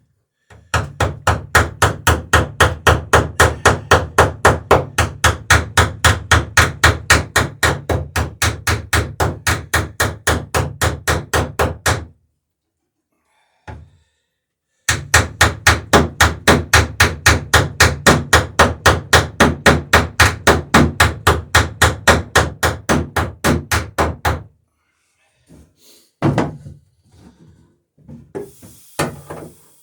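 A hammer striking rivets in rapid, even blows, about four a second, peening them over while riveting a wooden dory's sheer-strake planking. The blows come in two long runs with a short break between, then a few scattered knocks near the end.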